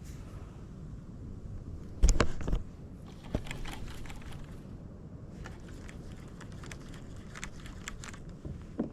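A hard knock with a short rattle about two seconds in, followed by a long run of light, quick clicks and rattles: fishing gear being handled in a kayak.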